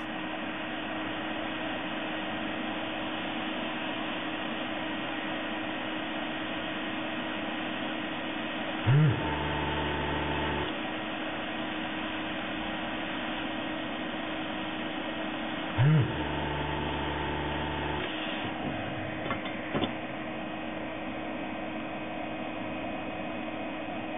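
Hot air gun blowing with a steady hiss while the desoldering iron's vacuum pump switches on twice, several seconds apart. Each time it starts sharply, hums for a second or two as it sucks the melted solder and capacitor lead out of the board's holes, then cuts off. A couple of light clicks follow.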